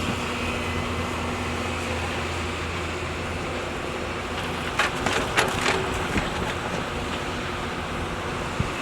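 Hyundai excavator's diesel engine running steadily, with a quick cluster of metallic clanks about five seconds in and one more knock near the end.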